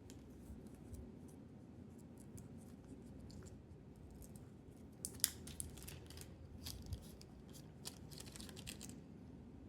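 Faint clicks, scratches and crinkles of hands handling a small resin-printed skull and its packaging, with the sharpest clicks coming in a cluster between about five and nine seconds in.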